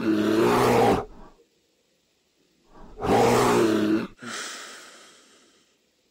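A bear roaring twice. Each roar is deep, loud and about a second long, the two about three seconds apart. The second cuts off and trails away in an echo.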